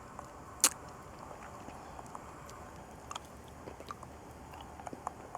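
Mouth sounds of someone eating a hard-candy lollipop: scattered small wet clicks and smacks, with one sharp, loud click about half a second in.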